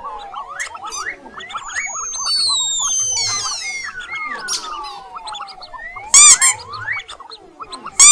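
Mouse-squeak sound effects: a busy stream of short high squeaks and chirps over repeated falling whistle-like tones, with one very loud shrill squeak about six seconds in.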